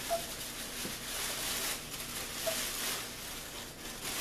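Paper and plastic packing wrapped around dolls rustling and crinkling as it is handled and pulled out of a cardboard box. The rustle swells and fades in waves.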